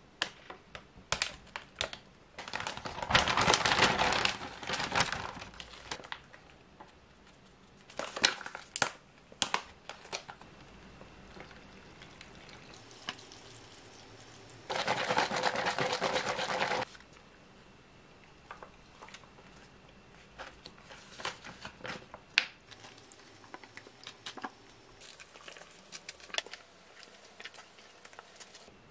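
A paper shake-powder pouch crinkling and rustling as it is handled, loudest a few seconds in. About halfway through, water is poured from a glass measuring cup into the pouch for about two seconds, and scattered small clicks and rustles follow.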